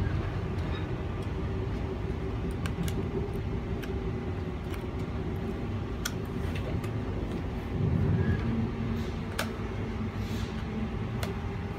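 Queensland Rail SMU 260 electric train running between stations, heard inside the carriage: a steady low rumble with a constant hum and scattered light clicks, swelling louder in the low rumble about eight seconds in.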